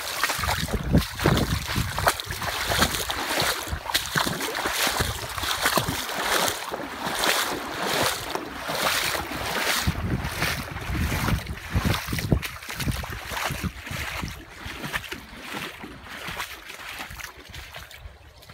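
Footsteps wading through shallow water, sloshing and splashing at a steady walking pace, about two steps a second. They grow fainter and stop near the end.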